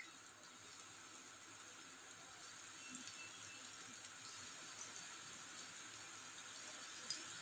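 Bread slices sizzling in hot oil in a frying pan on a high flame: a faint, steady hiss that grows a little as more slices go in. A sharp click comes near the end.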